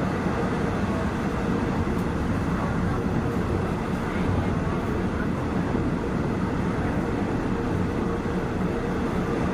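Steady running noise of a passenger train in motion, with a low rumble and a faint steady hum.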